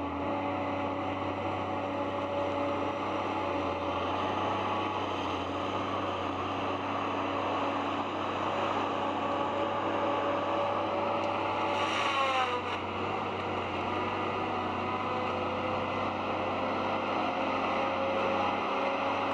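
Heavy forestry machine's engine running steadily. About twelve seconds in its pitch drops briefly as it comes under load, with a short burst of noise at the same moment, then it settles again.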